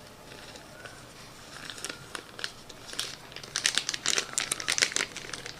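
Accessory packaging being handled: irregular rustles and small clicks, sparse at first and growing denser over the last two seconds.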